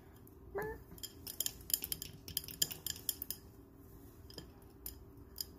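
Light clicks and taps of a ceramic bowl of chicken wings being handled and tilted, bunched together about a second and a half to three seconds in. A short rising hum of voice sounds about half a second in.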